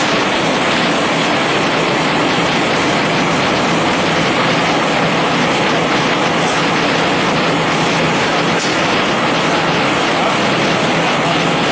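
Napkin paper converting machines running together, the color printing unit's rollers feeding paper: a steady, loud, even mechanical din.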